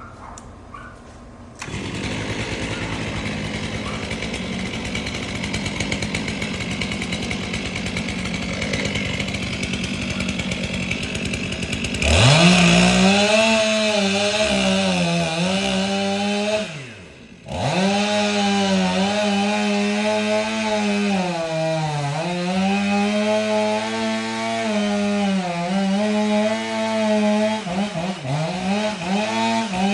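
A chainsaw engine idles, then revs up to full throttle about twelve seconds in and runs hard while cutting, its pitch sagging again and again under load. Midway it briefly drops off and revs back up.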